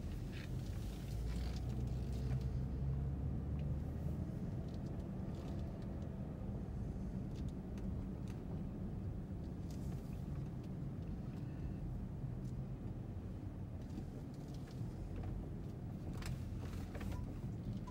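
Steady low rumble of a car's engine and tyres heard from inside the cabin while driving slowly, with a few faint clicks.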